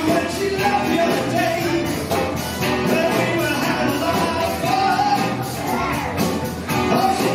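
Live rock band playing: a man singing over electric guitar and drums, amplified through the venue's PA.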